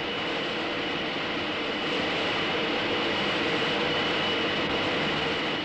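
High-speed wind tunnel running: a steady rushing roar with a thin high whistle in it, growing slightly louder as the airspeed is raised toward Mach 0.9, then starting to fade right at the end.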